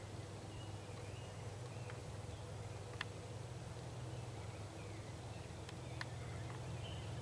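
Quiet woodland ambience: a steady low hum, faint short bird chirps, and a few sharp clicks, a couple of them about three seconds apart.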